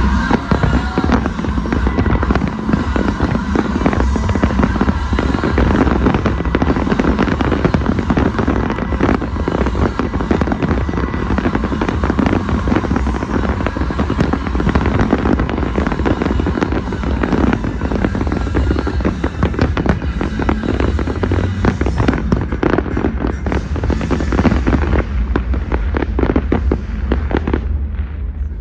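Fireworks display going off in a dense, continuous barrage of bangs and crackles, with music playing underneath.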